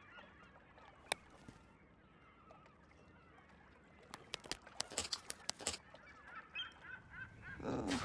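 Cartoon sound effects for two elderly bar-tailed (Korean) godwits: faint honking bird calls, and a quick run of sharp clacks about four to six seconds in as their long beaks cross and knock.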